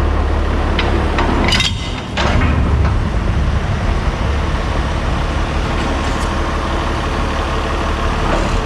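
Heavy diesel engine of farm machinery running steadily, with a short hiss about a second and a half in.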